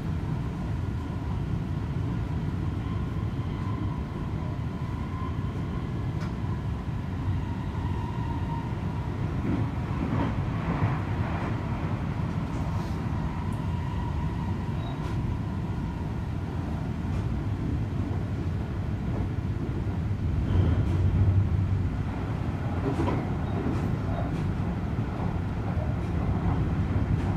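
Seibu 40000 series electric train running, heard from inside the car: a steady rumble of wheels on rail and running gear, with a faint steady whine through the first half and a louder stretch about three quarters of the way through.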